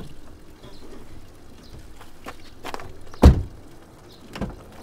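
A car door shuts with a heavy thud about three seconds in, the loudest sound, with footsteps and a few lighter clicks and knocks around it and another knock near the end.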